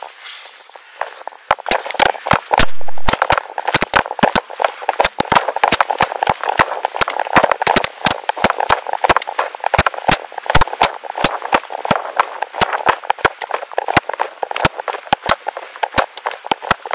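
Running footsteps on dirt heard through a body-worn camera: sharp thuds at about three a second, starting about a second and a half in, over a steady rushing noise.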